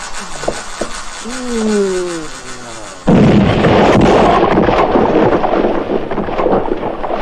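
A film explosion: a sudden loud blast about three seconds in, followed by a long rumble of dust and debris as a wall is blown apart. Before it, a short tone slides down in pitch.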